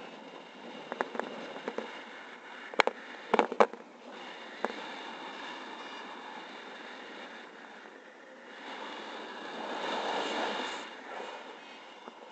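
Wind rushing over the microphone of a camera carried in paraglider flight, with several sharp clicks and knocks in the first five seconds and a swell of louder wind about ten seconds in.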